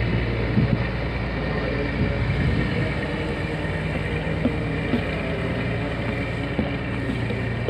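Boat engine running steadily, a low drone with a constant hum.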